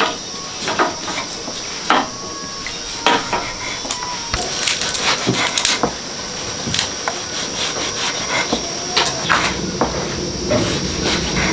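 Kitchen knife slicing tomatoes on a thick wooden chopping block: a series of irregular knocks as the blade strikes the wood.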